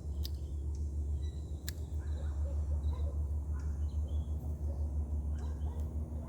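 Outdoor ambience: a steady low rumble with a fast flutter, faint short bird chirps, and a couple of light clicks.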